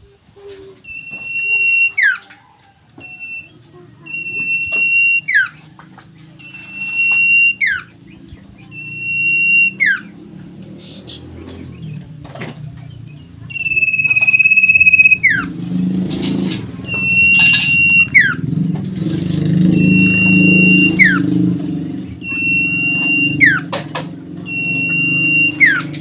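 Caged common iora (cipoh) calling over and over: a held high whistle that drops sharply at the end, repeated about every two seconds. From about halfway a low rumble rises in the background under the calls.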